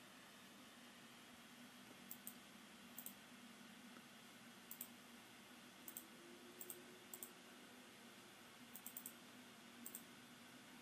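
Faint computer mouse clicks, mostly in quick pairs, coming every second or so at uneven intervals over a low steady hum.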